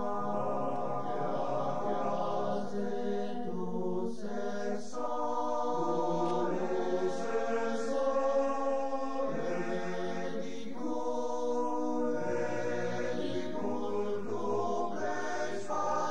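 Male alpine choir singing a slow Friulian song a cappella, holding sustained chords that change every second or two.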